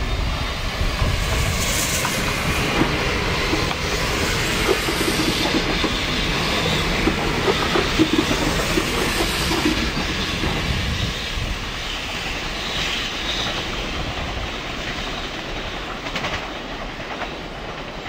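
Renfe Media Distancia electric multiple unit passing at speed, its wheels clattering over the rail joints; the noise eases off somewhat in the last few seconds.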